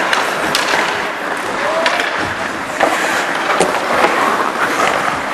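Ice hockey play: skate blades scraping across the ice, with several sharp clacks of sticks and puck.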